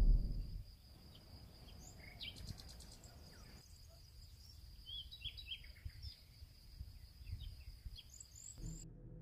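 Outdoor ambience of scattered bird chirps over a faint low rumble, with a steady high-pitched whine that cuts off near the end. A low steady tone comes in just before the close.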